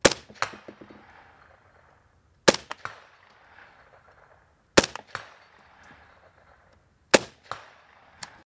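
Four suppressed shots from a Desert Tech MDR-series bullpup rifle in 6.5 Creedmoor, fired slowly about two and a half seconds apart. Each shot is followed by a second, quieter crack about half a second later and a short reverberating tail.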